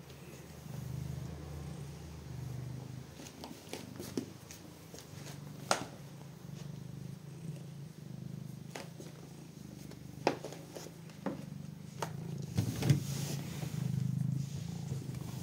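Domestic cat purring steadily as it is stroked, a low pulsing rumble. Scattered sharp clicks and rubbing from handling close to the microphone, the loudest about six, ten and thirteen seconds in.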